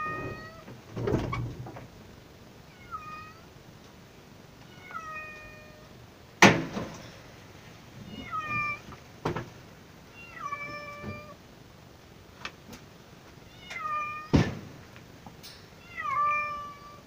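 A calico domestic cat meowing repeatedly, short calls about every two seconds, many falling in pitch at the end. A few sharp knocks cut in, the loudest about six seconds in and another near the end.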